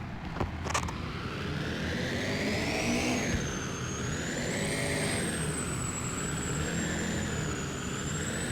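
Pickup truck engine pulling away and accelerating: its pitch climbs, drops at a gear change about three seconds in and climbs again, with a thin high whine rising alongside. A couple of knocks just before it pulls away.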